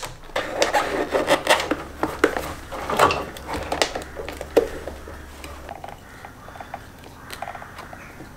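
Hands working at a car's plastic fuse box and wiring harness: irregular clicks, taps and rubbing of plastic, wire and rubber, busiest in the first half. A faint low hum underneath stops about two-thirds of the way through.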